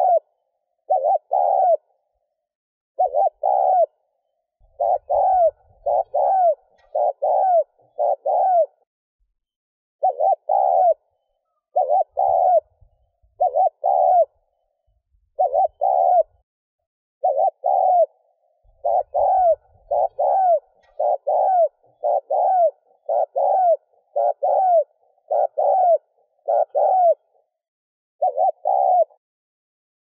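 Spotted dove giving the rapid, urgent coo ('thúc gù'). Short, clipped coos come about once a second, each broken into two or three quick parts, with a few brief pauses. It is the call played to provoke and draw in wild doves.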